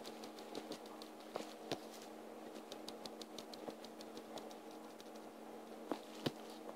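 Irregular light taps and clicks on a tablet touchscreen, with two sharper knocks near the end, over a steady low hum.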